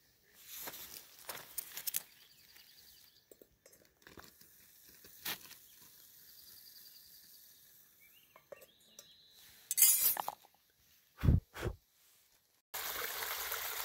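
Metal pot and lid of a camping cookset handled on a stove stand: scattered light clinks, a louder clatter about ten seconds in and two dull thumps. Near the end the steady rushing of a small babbling brook cuts in suddenly.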